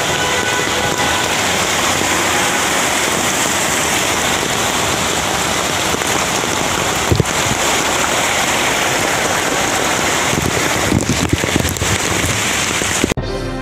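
Heavy rain and rushing floodwater: a dense, steady hiss, with a few short knocks about seven seconds in and again between ten and twelve seconds. Music starts abruptly just before the end.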